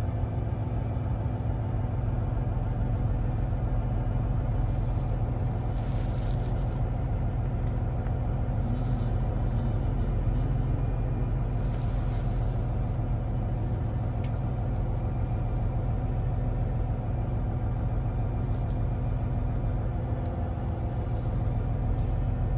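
Inside the cab of a 2024 Kenworth T680 semi truck pulling slowly away in a low gear: the diesel engine's steady low rumble, with some road noise.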